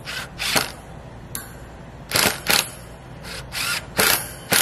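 Ryobi cordless drill driving screws into a wooden 2x4 in a series of short trigger bursts, mostly in pairs, one pair about every second or so.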